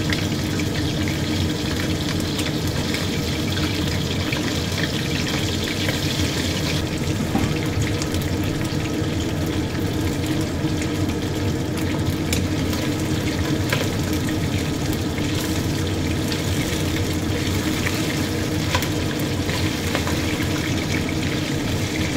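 Chicken skin coated in tapioca starch deep-frying in oil in a stainless steel wok over medium heat: a steady sizzle with scattered pops, as the oil spits around the skin that went in cold from the fridge. A metal ladle stirs the pieces.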